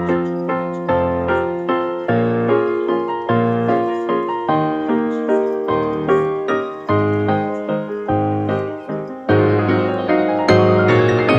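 Background piano music: a gentle melody of single notes that each fade, over low bass notes, growing fuller and louder about nine seconds in.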